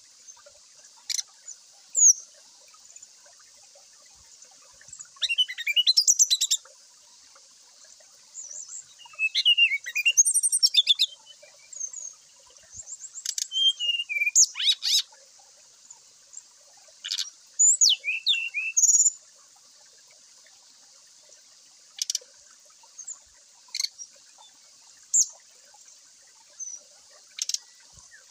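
Brown-chested jungle flycatcher singing in short, separate bursts: quick whistled phrases that sweep up and down, some run into rapid chattering trills, with single sharp notes in the gaps. A steady high hiss runs underneath.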